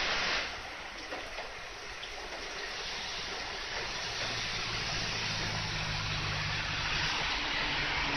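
Steady rain falling, with the low drone of an approaching diesel railcar's engine coming in from about four seconds in.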